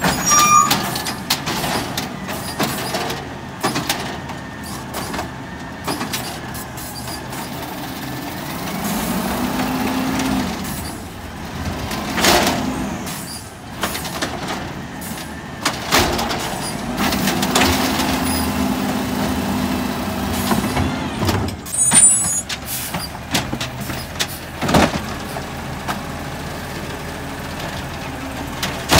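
Natural-gas automated side-loader garbage truck working its lifting arm: the engine runs, with two stretches of steady hydraulic whine as the arm lifts and tips the bins, and several sharp clanks and bangs as the carts knock against the arm and hopper.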